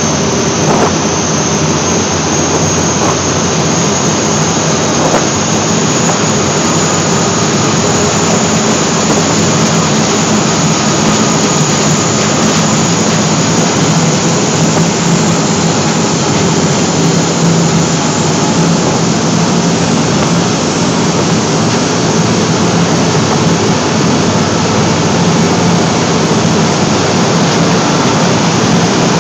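Aluminum seine skiff's engine running loud and steady at high power under full towing load, the boat straining against a tow line tied to a piling, with churning water from the wash.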